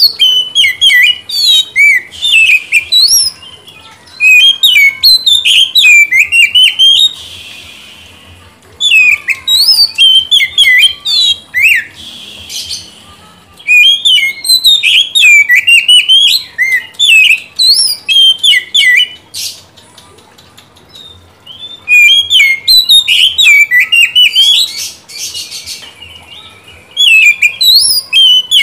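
Oriental magpie-robin singing: bursts of fast, varied whistled notes that sweep up and down, each burst a few seconds long with short pauses between.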